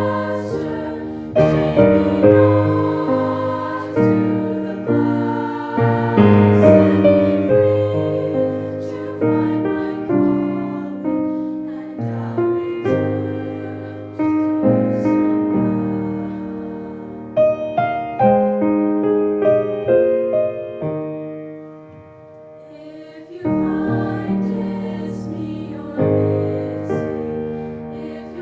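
Youth choir singing a slow song with piano accompaniment. The music thins to a hush a little past two-thirds of the way through, then the piano and voices come back in.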